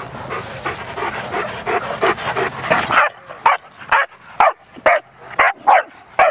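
Dogs at play: a busy stretch of short yips and play noises, then, about halfway through, a run of loud barks at roughly two a second.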